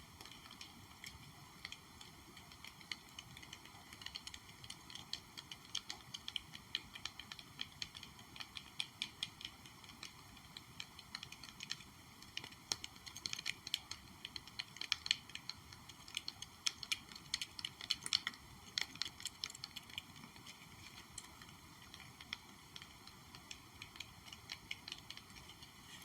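Gentle, quick tapping on a small object in irregular flurries of light clicks, densest around the middle.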